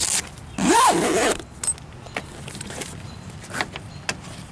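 Zipper on a Jeep soft-top side window being pulled around: one loud zip a little under a second long, its pitch rising then falling, followed by fabric rustling and small clicks as the panel is handled.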